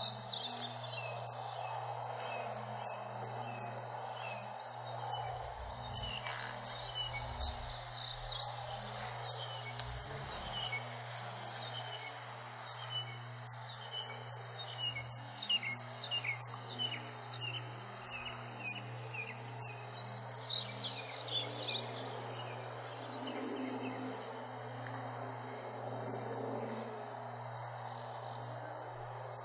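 Outdoor insect chorus pulsing steadily at about two beats a second, with birds calling now and then over a faint low hum.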